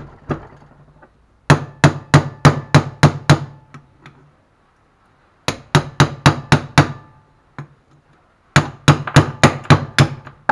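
Steel pincers used as a hammer, tapping on a car alternator's rotor and stator: three quick runs of six or seven metal-on-metal knocks, each with a short ring.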